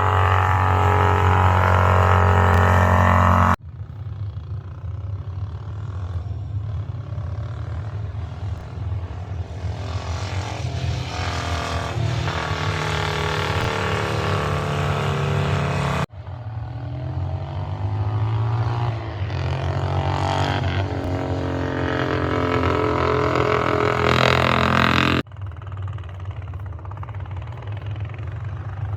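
Racing engines of classic vehicles at hard throttle, their pitch climbing again and again through the gears. It begins with a loud, steady engine note, and the sound cuts abruptly three times as one run gives way to the next.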